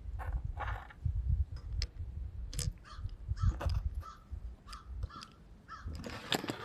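A bird calling in a series of short, repeated calls over a constant low rumble, with a louder burst of noise near the end.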